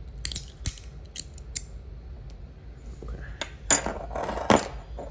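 Small metal parts of a fidget slider being handled: a few sharp clicks and taps, then about three seconds in a louder scraping rub with sharper clicks.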